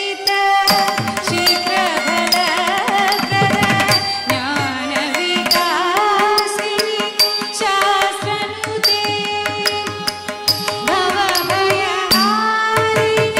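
Carnatic classical music accompanying a Bharatanatyam dance: a melody that slides between notes over steady drum strokes.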